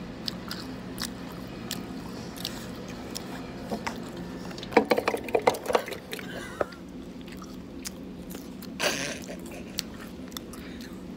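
Close-miked chewing and biting of food: scattered mouth clicks, a quick run of crunchy bites about five seconds in, and a breathy burst near the end, over a steady low hum.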